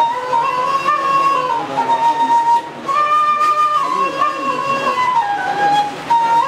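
Devotional inshad music: a single unaccompanied melodic line of long held notes that step down and back up. It pauses briefly about two and a half seconds in and again near the end.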